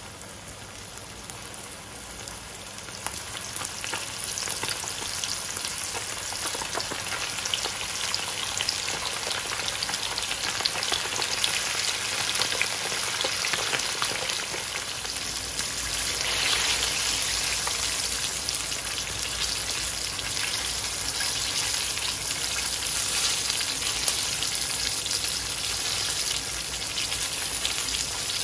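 Cornflour-coated chicken wings frying in hot oil in a wok, with a dense, steady sizzle and crackle that grows louder over the first few seconds as the batch goes in.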